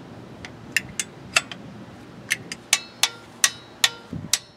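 Tekton quarter-inch-drive click torque wrench ratcheting on the oil cooler mounting bolts: scattered sharp metallic clicks, some ringing briefly, coming faster in the second half as the bolts are gradually snugged down.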